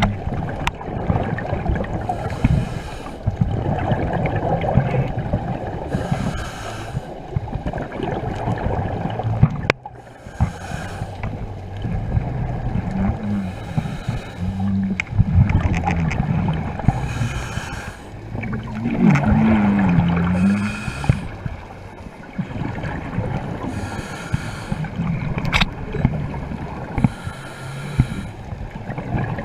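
Underwater scuba-diving sound: a steady rush of water in a strong tidal current, with a hissing burst of exhaled regulator bubbles every three to four seconds.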